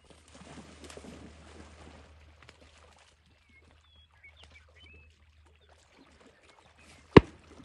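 A dog splashing into a pond and swimming out to retrieve a shot duck, the splashing loudest over the first two seconds. A few faint bird chirps follow, and a single sharp crack comes near the end.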